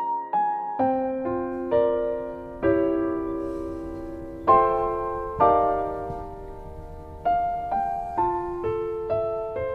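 Soft background piano music: single struck notes and chords that ring and fade, in a slow, gentle melody.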